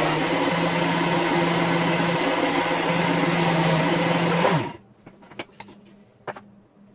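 WorkSharp Ken Onion knife sharpener with the Blade Grinder attachment running, its abrasive belt grinding the edge of a tanto blade. About four and a half seconds in the motor is switched off and its hum falls away as it spins down, followed by a couple of light clicks.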